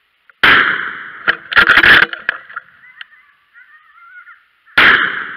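Close-range gunfire at a coyote: a sharp shot about half a second in, a quick burst of loud cracks around a second and a half to two seconds, and another shot near the end, each dying away fast.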